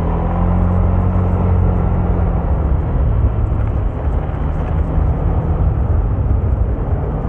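A moving vehicle's engine hum with road and wind noise, steady and heavy in the low end.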